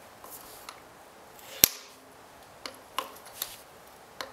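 Short sharp clicks of a hand tool on the inspection plugs of a Kawasaki KLR650's engine side cover as they are worked free: one loud click about one and a half seconds in, then a few lighter clicks.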